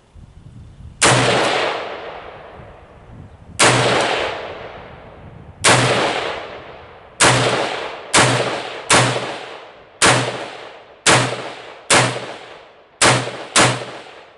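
AR-15 rifle firing eleven semi-automatic shots, each with a sharp crack and a ringing echo that dies away over about a second. The shots start a couple of seconds apart and come faster toward the end, under a second apart. The last shot empties the magazine.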